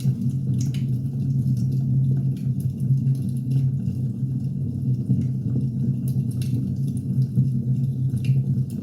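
Wood fire burning: a steady low rumble with irregular sharp crackles and pops from the burning logs.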